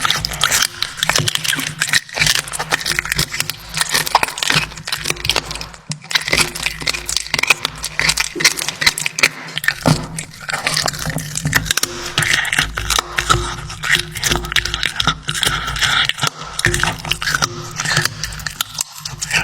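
A cat chewing and crunching raw food close to the microphone: a dense, continuous run of wet clicks and crunches.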